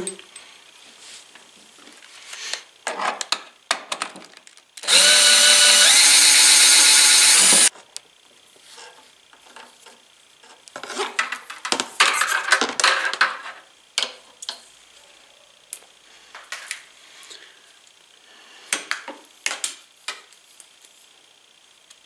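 Cordless drill motor running steadily for about three seconds, about five seconds in, spinning a benchtop wire stripper as insulated wire goes through; it starts and stops abruptly. Around it come scattered clicks and rustling as the wire is handled and its slit insulation is peeled off the copper.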